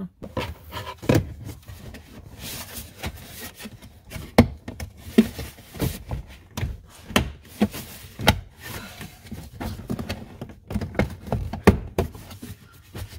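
Car HVAC ducts being worked into place by hand: irregular knocks and clicks with rubbing between them as one duct is pushed up over the other.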